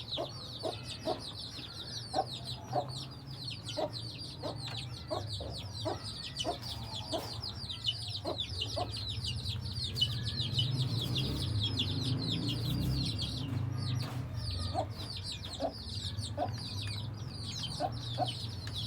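Aseel chickens clucking in short notes, about one or two a second, pausing in the middle and starting again near the end, over a constant dense high chirping and a low hum.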